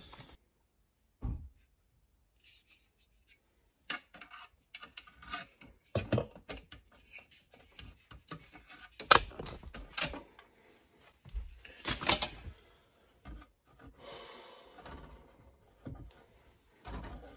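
Irregular knocks, clicks and scraping of a homemade aluminum hook rod and a hand working inside a steel breaker panel, fishing for a wire at the bottom of the box. Nearly quiet for the first few seconds, then busier knocking and rubbing.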